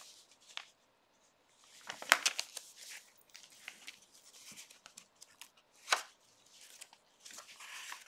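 Paper pages of a handmade junk journal being turned by hand: rustling and flapping paper with a few sharp clicks and taps. The loudest is a cluster about two seconds in and a single sharp snap near six seconds.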